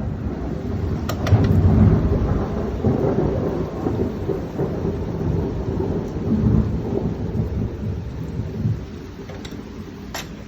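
Thunder rumbling over heavy rain. The rumble swells about a second in and again around six seconds, then dies away toward the end, with a few brief sharp clicks.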